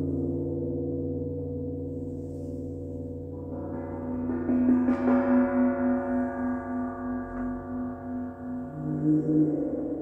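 Resonant struck metal sound-therapy instruments ringing with a long, deep sustain. A fresh strike about three and a half seconds in adds brighter overtones, and the ringing then wavers in a slow pulse of about two beats a second.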